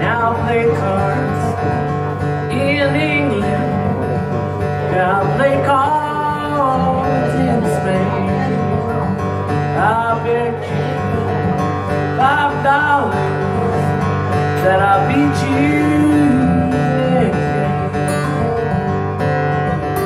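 A steel-string acoustic guitar fingerpicked and strummed in a steady old-time folk pattern, with a man singing phrases of the ballad over it.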